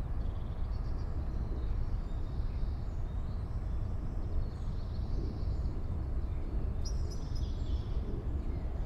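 Outdoor ambience: a steady low rumble like wind, with faint distant bird chirps.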